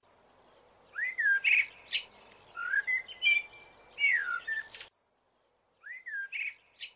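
A songbird singing short whistled phrases that slide downward, each followed by buzzy and high squeaky notes. The sound cuts off abruptly about five seconds in, and the first phrase comes again a second later, as if the recording was edited.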